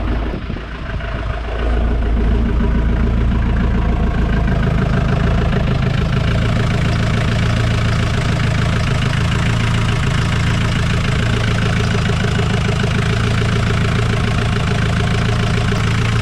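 Westerbeke marine diesel engine of a sailboat idling steadily, run on after its first start following months laid up to clear a little smoke from the exhaust. It gets louder about two seconds in, as the exhaust at the stern comes closer.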